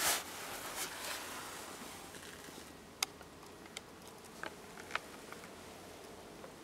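Handling noise inside a parked car: a brief rustle at the start as the camera moves, then quiet with about four small sharp clicks over two seconds.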